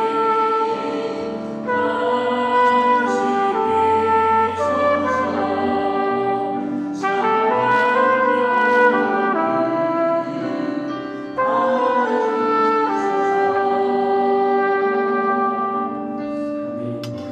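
Trumpet playing a slow hymn melody in sustained notes over a lower accompaniment. The trumpet stops near the end and the music fades down.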